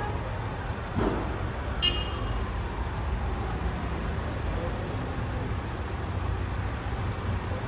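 Emergency and street vehicles idling with a steady low engine rumble, a short high toot about two seconds in, and a faint tone falling slowly over the following seconds like a siren winding down.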